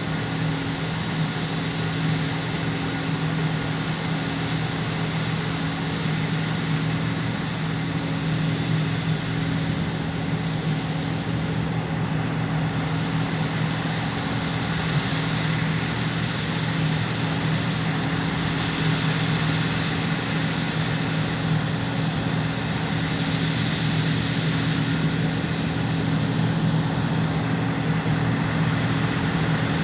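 John Deere 9580 WTS combine harvester running steadily, a constant engine and machinery drone with a low hum that holds one pitch throughout.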